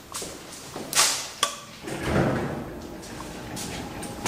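Doors in an apartment-block entrance: a door bangs shut about a second in, followed by a sharp click and then a short low rumble.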